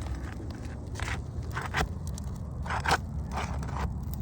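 Asphalt roof shingles being pried up with a shingle lifting tool: a series of short scrapes and crackles as the sealed tabs are worked loose. The lift tests whether the wind-damaged shingles can be repaired, and it is pulling the nails up through them.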